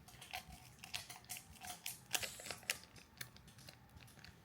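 Faint, irregular clicks and crackles of small plastic craft supplies being handled, as glitter is got out to add to homemade slime.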